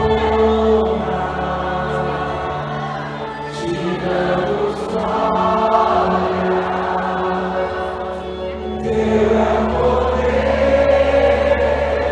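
Choir-like voices singing long held notes in harmony, the chord shifting slowly.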